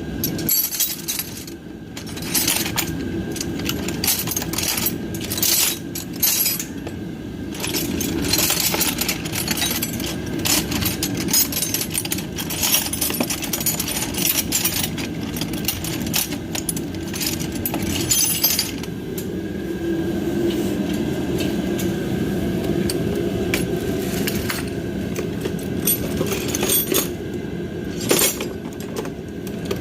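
Metal hand tools clinking and clattering again and again as they are rummaged through in a search for one tool, over a steady low hum.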